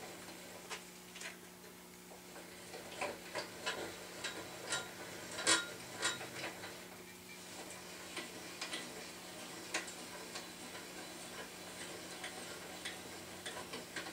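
Klutch 13-inch floor drill press table crank being turned, the pinion clicking and ticking irregularly against the column's rack as the table travels. The uneven clicks go with a table that jumps and skips instead of moving smoothly.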